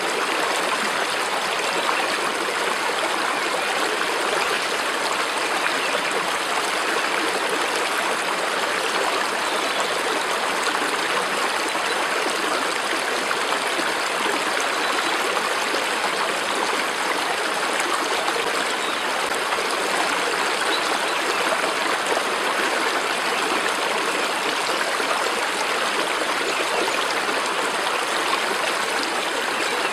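Flowing stream water rushing and trickling, a steady, even sound with no change.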